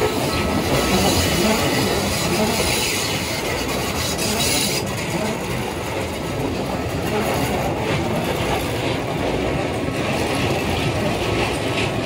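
Electric commuter train running past at steady speed: continuous rumble of wheels on the rails, with a brighter high hiss for the first few seconds.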